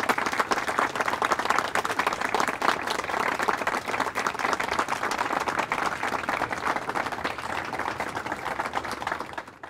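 Applause: many hands clapping steadily, fading out near the end.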